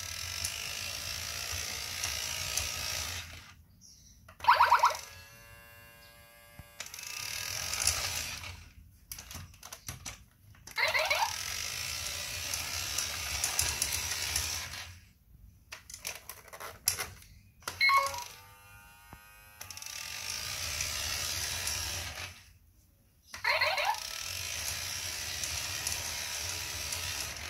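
Battery-operated toy robot whirring in runs of about three seconds as its small electric motor drives it across the floor, with short pauses between. Each run opens with a quick rising tone, a buzzing tone sounds twice, and a few clicks come in the pauses.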